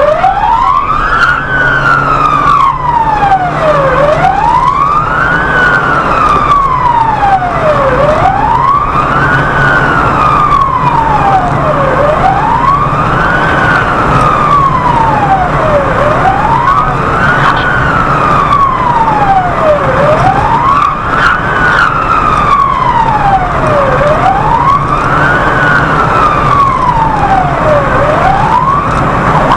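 Emergency vehicle siren on wail, a single tone rising quickly and falling more slowly, repeating about every four seconds, over a steady low vehicle hum.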